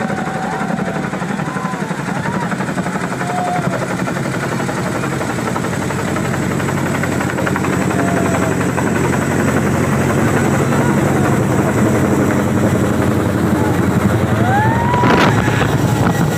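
Boeing CH-47 Chinook tandem-rotor helicopter flying low overhead: a steady, rapid rotor chop with engine noise, growing louder as it comes closer. A brief rising call is heard about fifteen seconds in.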